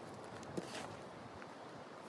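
One slow footstep crunching through deep snow about half a second in, over a steady hiss of wind.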